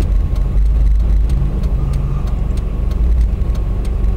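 Steady low rumble of a car's road and engine noise heard inside the cabin while driving, with faint regular ticking about twice a second.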